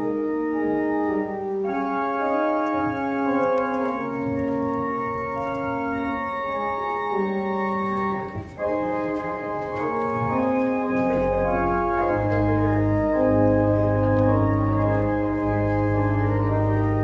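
Organ postlude after the benediction: slow, sustained chords changing every second or two, with a deep bass note coming in about two-thirds of the way through.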